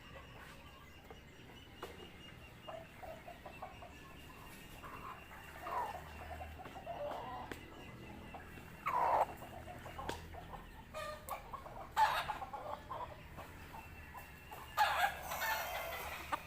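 Broiler chickens clucking and squawking in short, scattered calls, with louder squawks about nine, twelve and fifteen seconds in.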